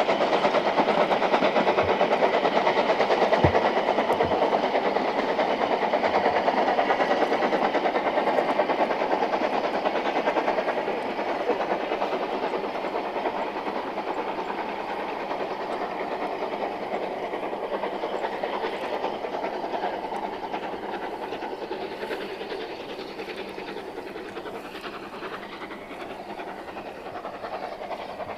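Narrow-gauge steam train working along the line, locomotive exhaust and coach wheels on the rails, loud at first and fading steadily from about ten seconds in as it draws away.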